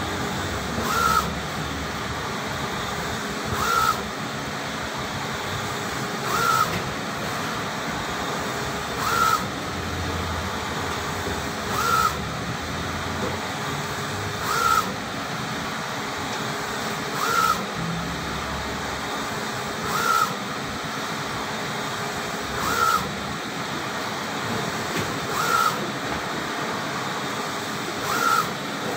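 UV flatbed printer printing: a steady whir of fans and motors, with a short squeaky chirp and a knock repeating evenly about every 2.7 seconds as the print-head carriage travels back and forth over the bed.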